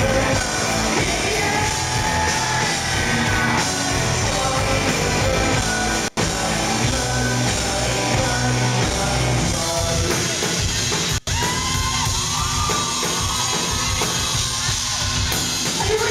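Live rock band playing in a concert hall: electric guitars, drums and a male lead vocal, with the crowd yelling and whooping. The sound cuts out for an instant twice, about six and eleven seconds in.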